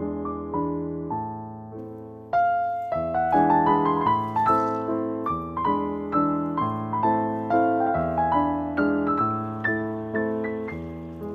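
Gentle background piano music: melody notes over chords, each note struck and fading, with a fuller, louder phrase beginning a couple of seconds in.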